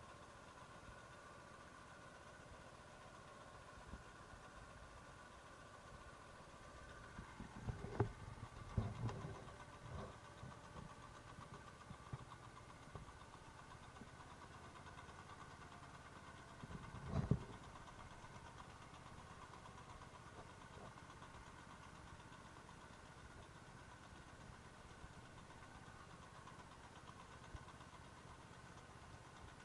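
Walk-behind tractor engine running faintly while it pulls a vibrating potato digger, with a few louder clattering knocks about eight to ten seconds in and again around seventeen seconds.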